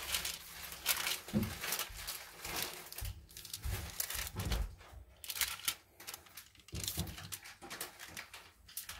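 A metal spoon scraping and spreading cake batter over parchment paper in a baking tray, with irregular soft scrapes and rustles of the paper.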